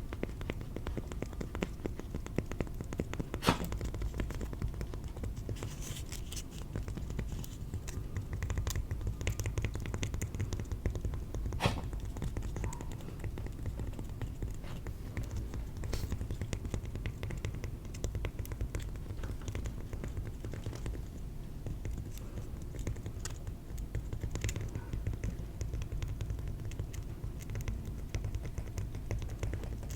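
Rapid, continuous tapping on cork, soft and dull, with a few sharper clicks now and then.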